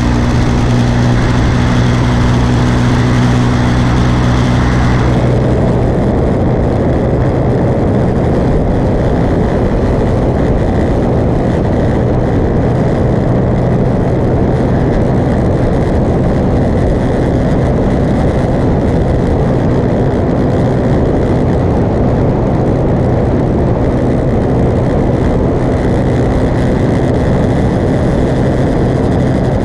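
Motorcycle engine running steadily at road speed, its low hum under loud wind rush on the microphone. About five seconds in, the higher hiss drops away and a lower, heavier rushing takes over.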